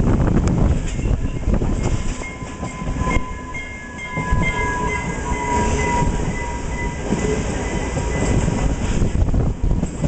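Passenger train running, heard from on board: rumble and clatter of the wheels on the rails, with a thin, steady high tone for several seconds in the middle.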